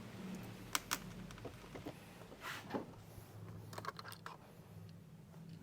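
Scattered light clicks and a brief scrape of small hard plastic and metal parts being handled, over a faint steady low hum.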